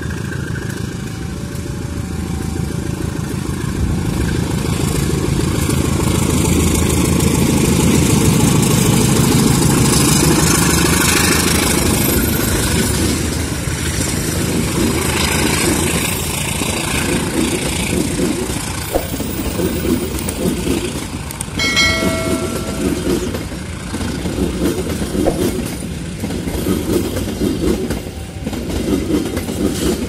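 Diesel-hauled passenger train departing and passing close by: the locomotive's engine grows louder to a peak as it goes past. The coaches' wheels then clack rhythmically over the rail joints as the train pulls away, with a brief horn blast about two-thirds of the way through.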